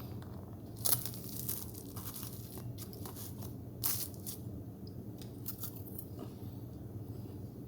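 Crisp baked pastry crunching: two sharp crunches about three seconds apart, with smaller crackles between them, over a steady low hum.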